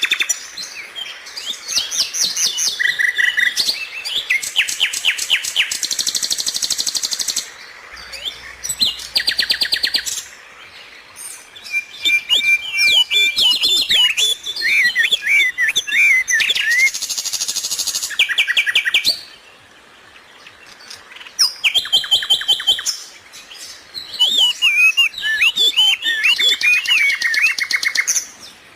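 Birds chirping and calling in quick runs of repeated high chirps and trills, with several calls overlapping; the calling drops away briefly twice.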